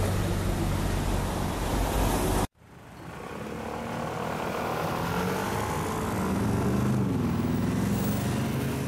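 Engine revving, cut off abruptly about two and a half seconds in. Then city street traffic fades in, with vehicle engines rising and falling in pitch as they pull away.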